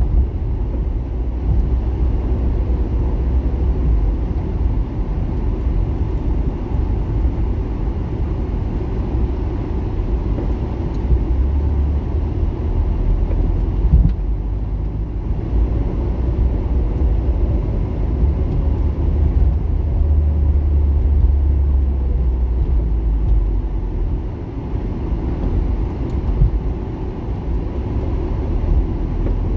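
A car driving along a city street: a steady low rumble of engine and tyres on the road.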